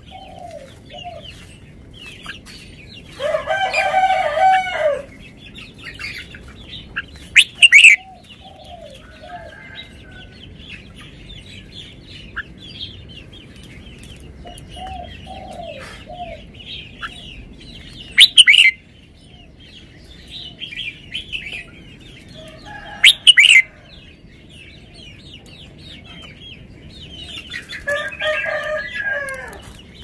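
Caged red-whiskered bulbul calling in short, loud phrases, four of them spread through the stretch, over steady faint chirping of other birds. Twice, around four seconds in and near the end, a longer, lower call of about two seconds stands out.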